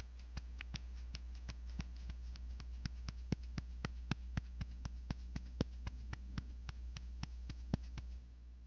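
Fingers tapping and clicking on paper craft pieces, a quick, slightly uneven run of light taps about four a second that stops shortly before the end, over a steady low hum.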